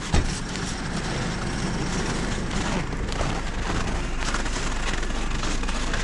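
Steady running hum of a Burlak six-wheeled all-terrain vehicle's engine close by, with a thump just after the start and scattered footsteps on snow-covered ice.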